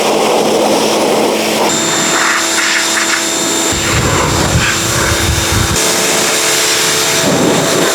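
Pressure washer running steadily: a motor whine over the hiss of the spray, with some low rumbling about halfway through.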